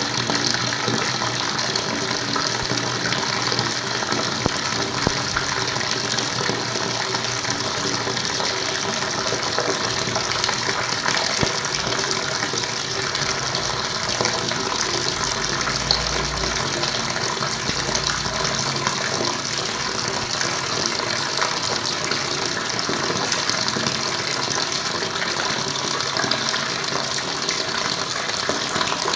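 Running water gushing and splashing without a break.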